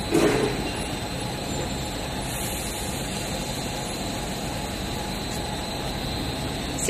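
Pipe haul-off machine for a plastic extrusion line running with a steady mechanical hum and hiss and a thin high-pitched whine, with a short louder bump right at the start.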